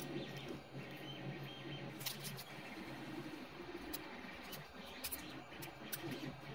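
Scattered small metallic clicks and ticks as a watch mainspring is handled and worked into a 3D-printed mainspring winder, over the steady hum of a 3D printer running in the background.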